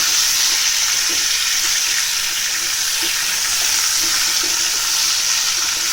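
Sliced potatoes frying in hot oil in a kadhai, a steady sizzle.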